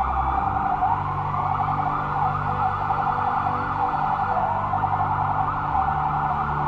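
Police car sirens wailing, several overlapping rising and falling tones at once, over a low steady drone.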